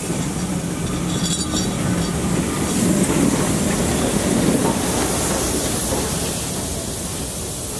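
SBB C 5/6 2978, a four-cylinder compound steam locomotive, rolling slowly past, with hissing steam and wheels on the rails. It is loudest a few seconds in and fades as it moves away.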